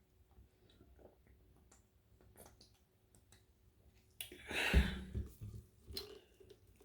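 Eating mouth sounds: soft chewing clicks and smacks, then a sudden louder rush of noise with a low thump about four seconds in.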